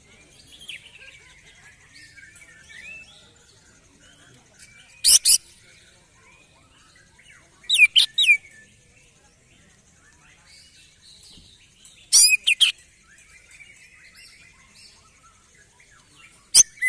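Caged male green leafbird (cucak ijo) singing in four loud, short bursts of sharp rising and falling whistles, a few seconds apart, over faint chirping of other birds. The bird is worked up ('emosi') and singing hard after a song contest.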